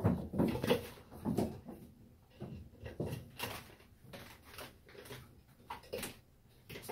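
Kittens' paws thumping and scrabbling on a bathtub as they chase each other, a run of irregular knocks that is loudest in the first second and a half, then scattered knocks and scuffles.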